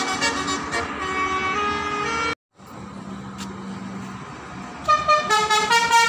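Indonesian bus telolet horn, a multi-note musical air horn, playing a tune of stepping notes. It cuts off abruptly about two and a half seconds in, leaving a quieter stretch with a low steady drone, and the horn tune starts again near the end.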